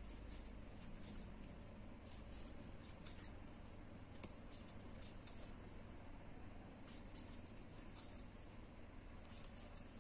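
Faint, irregular scratching and rustling of acrylic yarn being worked with a metal crochet hook and fingers, over a steady low hum.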